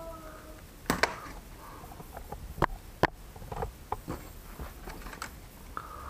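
A clear plastic blister pack holding RAM modules is handled and pried at, giving scattered sharp plastic clicks and crackles, about seven in all.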